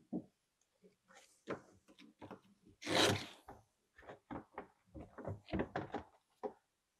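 Seat and Velcro strap being fitted onto the side rail of a plastic folding kayak: a run of irregular knocks, taps and rubs, with one louder rasping noise about three seconds in.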